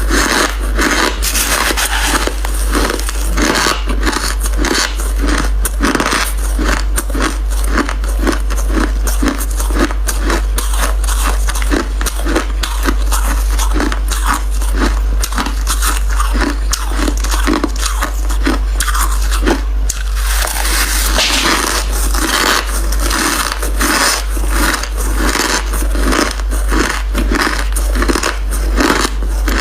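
Crunchy white crushed ice being bitten and chewed close to the microphone: a rapid, even run of crisp crunches, a few per second.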